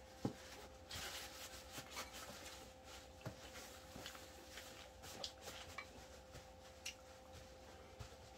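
Quiet eating at a table: scattered light clicks and taps of tableware on dishes, with a few soft rustles, over a steady faint hum.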